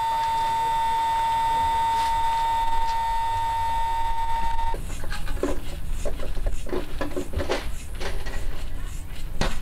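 Cordless Intex electric air pump running with a steady high whine as it inflates an air mattress, cutting off suddenly about halfway through. Irregular rustling and knocks follow.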